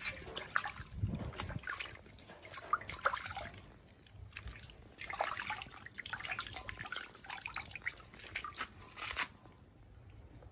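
Water splashing, trickling and dripping in a metal basin as a baby monkey is washed by hand, in irregular bursts that stop abruptly about nine seconds in.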